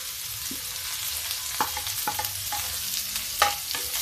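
Chopped onion sizzling in hot mustard oil with cumin in a metal kadhai. A wooden spatula stirs it, knocking and scraping on the pan a few times; the loudest knock comes a little past three seconds in.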